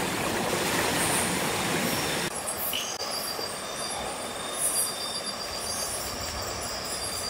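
Steady rush of river water at night, which drops sharply about two seconds in. After the drop, night insects' steady high trills and short high chirps stand out over the water.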